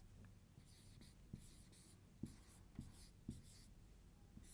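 Marker pen writing on a whiteboard: faint scratchy strokes with a few soft knocks as the tip meets the board.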